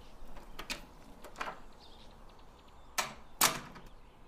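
A few sharp clicks and knocks at uneven spacing, faint at first, with the two loudest about half a second apart near the end.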